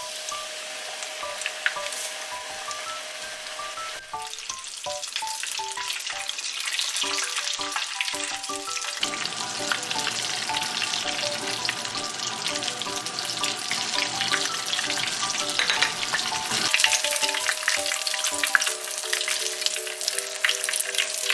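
Hot oil crackling and sizzling as oatmeal-and-okara-coated fried chicken deep-fries in a small pot, a dense patter of pops that grows busier toward the end. Light background music plays underneath.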